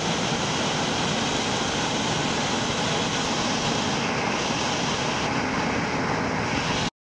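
Steady rushing of river water, an even roar with no breaks that cuts off suddenly just before the end.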